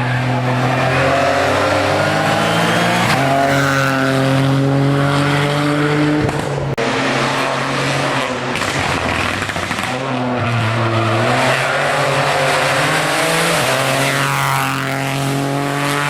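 Hillclimb race car engine running hard at high revs, the pitch stepping every few seconds as it shifts gears.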